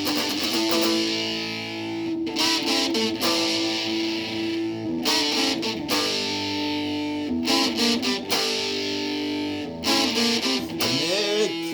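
Instrumental break in a song: electric guitar played through an effects unit with some distortion, held notes and strummed chords over a steady band.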